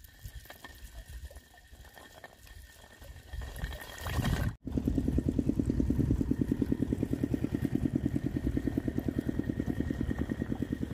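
A small engine running steadily with a fast, even beat, starting abruptly about four and a half seconds in after a quieter stretch.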